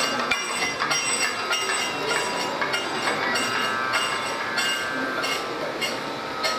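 Kathakali percussion accompaniment: struck metal cymbals and gong ringing in a steady rhythm, about two strikes a second, the ringing tones carrying over between the strikes.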